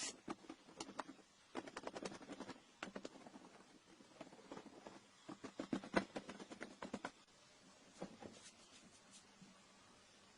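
Irregular light clicks and taps of small objects being handled, coming in clusters a couple of seconds and about six seconds in, then only a few.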